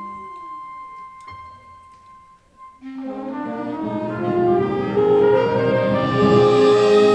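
High school concert band playing holiday music. A single high note is held and fades away, then about three seconds in the full band of brass and woodwinds comes in and swells louder.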